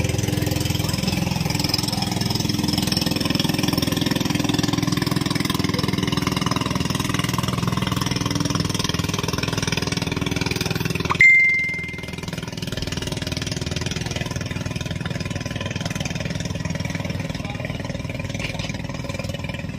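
An engine running steadily at idle. About eleven seconds in there is a sharp click with a short high ping, after which the engine sound is somewhat quieter.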